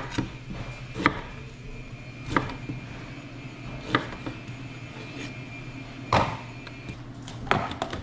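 Kitchen knife chopping on a wooden cutting board: about six single sharp strokes, one to two seconds apart, over a steady low hum.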